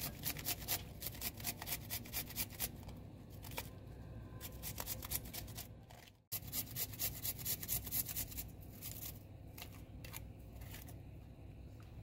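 Garlic cloves rubbed on a small stainless-steel hand grater: quick rasping strokes, about four or five a second, in two runs with a pause between, growing sparser near the end.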